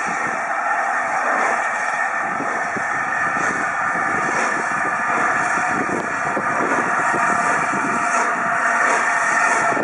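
LNER Class A4 Pacific Sir Nigel Gresley, a three-cylinder steam locomotive, getting under way: a steady rush of steam with faint, slow exhaust beats about once a second.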